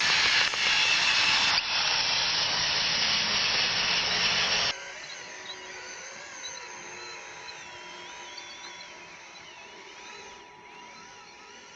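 The RC model's motor running loudly for about four and a half seconds, then dropping off suddenly to a quieter whine with a steady thin tone and wavering pitches.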